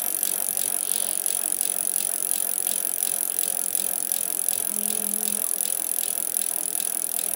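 A steady, even run of fast clicks over a constant hiss, like a mechanical rattle or ratchet ticking without a break.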